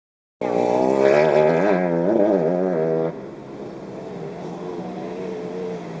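Off-road vehicle's engine running. Its pitch rises and falls repeatedly for the first three seconds, then the sound drops abruptly to a quieter, steadier run.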